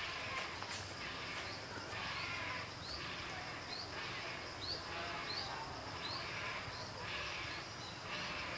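A bird repeating a short rising chirp about once every second, starting about two seconds in, over a steady hiss of outdoor background noise.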